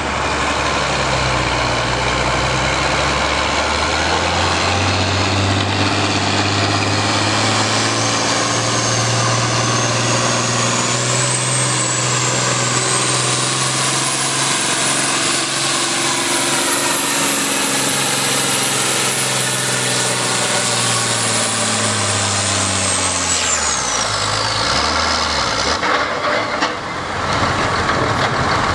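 Ford farm tractor's diesel engine under full load pulling a weight-transfer sled: the engine note climbs over the first few seconds with a high whine rising above it, holds, and then drops away when the throttle is cut about 23 seconds in.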